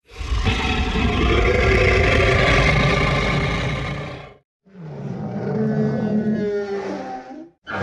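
Dubbed-in sound effects, each cut off abruptly: a dense rumbling effect for about four seconds, then a growling dinosaur-style roar with wavering pitch for about three seconds.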